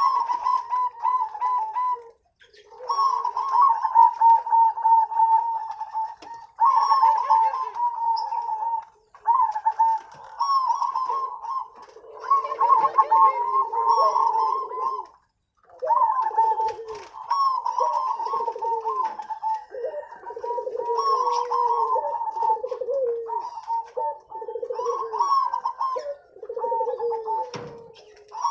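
Zebra doves (perkutut) cooing, several birds calling over one another in continuous wavering phrases, broken by a few short pauses.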